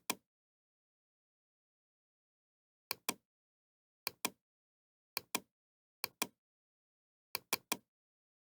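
Computer mouse clicking: about six clicks, each a quick double tick of button press and release, spaced a second or so apart after a gap of nearly three seconds, with dead silence between.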